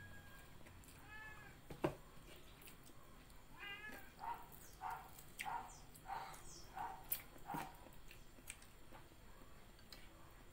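A cat meowing repeatedly: two short wavering meows, then a quick run of short mews about two a second. A sharp tap sounds about two seconds in and another near eight seconds.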